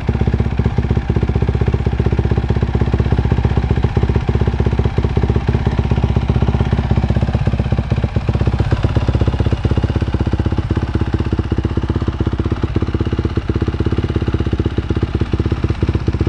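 2017 Honda CRF450R's 450 cc single-cylinder four-stroke engine idling steadily through a Yoshimura aftermarket exhaust, warming up just after a cold start, with an even, unchanging firing beat.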